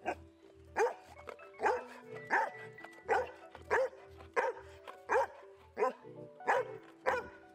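Golden retriever barking again and again, about eleven short barks evenly spaced a little under a second apart, over background music with a steady beat.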